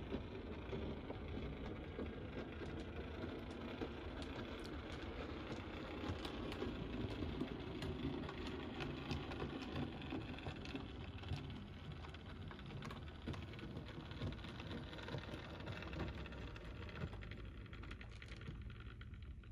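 Model steam tank locomotive and coaches running along the layout's track: a steady low rumble of the motor and wheels with rapid, irregular clicking of wheels over rail joints and pointwork, fading in the last few seconds as the train moves away.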